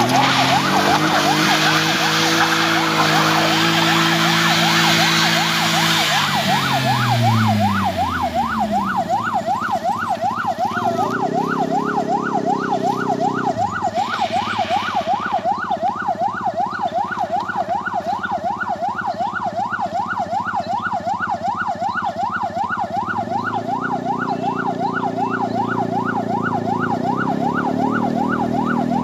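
A siren yelping steadily, its pitch sweeping up and down about three times a second, over car engines labouring on a steep climb. One engine's pitch drops sharply about seven seconds in, and a short hiss comes about fourteen seconds in.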